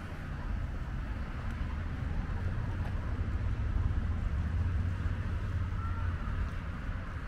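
Outdoor street ambience: a steady low rumble that swells about halfway through and then eases off.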